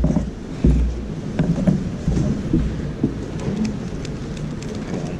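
A 2x2 speedcube being handled and turned in the hands, giving light plastic clicks and taps. There are dull thumps against the table in the first second and again around two seconds in.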